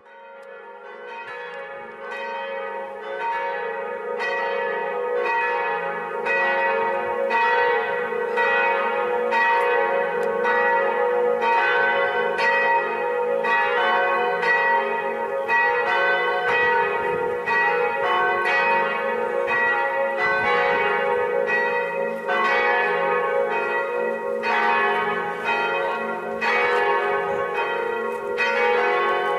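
Church bells ringing a continuous peal: a steady, rapid succession of overlapping strikes that swells in over the first few seconds.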